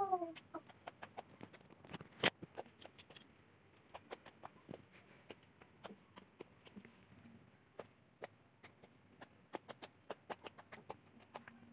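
Homemade baby-powder slime being stretched, squeezed and patted on a tile floor, giving a run of small irregular clicks and pops, with one sharper snap about two seconds in. A brief falling voice sound comes at the very start.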